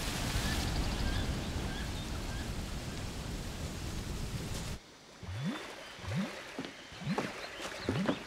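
Steady rushing roar of a large waterfall with small bird chirps above it. It cuts off abruptly a little past halfway, giving way to quieter swamp ambience with a series of short, low calls that slide upward in pitch.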